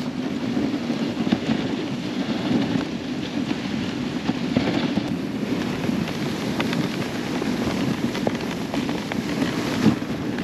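Dog sled running along a packed snow trail: a steady rough rushing and scraping from the runners and snow, with crackling clicks throughout.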